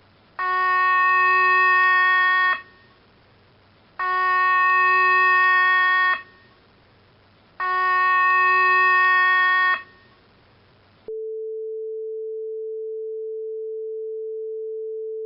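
Electronic emergency-alert broadcast tones: three buzzy tones of about two seconds each, a second or so apart, then a single steady pure tone held for about four seconds.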